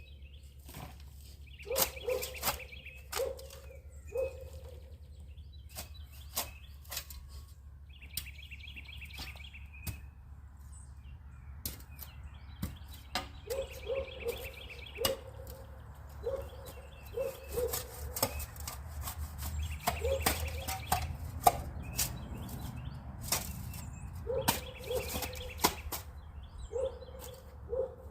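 Hammer striking wood or nails, irregular blows, some in quick runs of two or three, each with a short ring.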